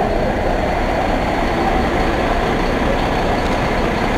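Fire truck's diesel engine running steadily, a loud low rumble with a faint high whine above it.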